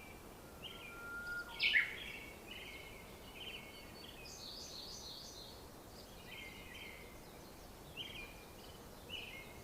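Songbirds singing, with short chirping phrases repeated throughout and one sharper, louder note near the start, over faint outdoor background noise.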